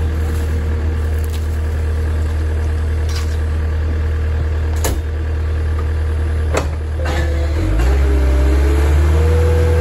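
Diesel engine of a Caterpillar skid steer forestry mulcher running steadily, with a few sharp cracks. A little under eight seconds in, the engine revs up and a rising whine settles into a steady higher tone.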